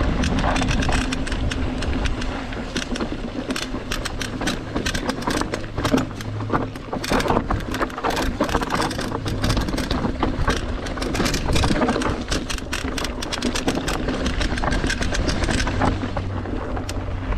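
Mountain bike clattering and rattling over rough ground, a rapid, irregular run of knocks and rattles over a steady low rumble of tyres on the trail.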